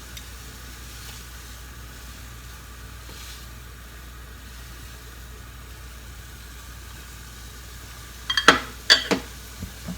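Pot of dashi with vegetables at a steady boil, a low even bubbling hiss. Near the end, a few sharp clinks of a utensil or lid against the pot.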